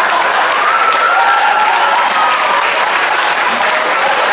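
Live audience applauding steadily after a joke, with a held cry from the crowd rising over the clapping about half a second in.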